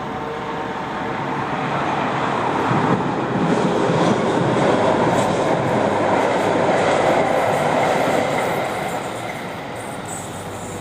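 Faked 'strange sky sound' of the kind reported as a sky hum: a loud, noisy roar that swells over a couple of seconds, holds, then dies back down near the end.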